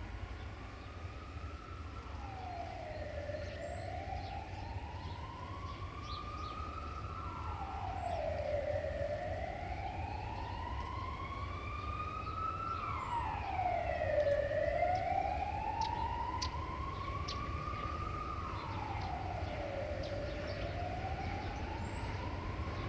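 Wailing emergency-vehicle siren. Its pitch climbs slowly for about four seconds and then drops quickly, over and over, about every five and a half seconds, with a steady low rumble underneath.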